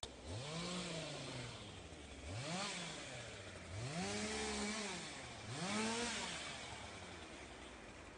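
A small engine revved up and back down four times, each rise and fall lasting about a second, idling low in between.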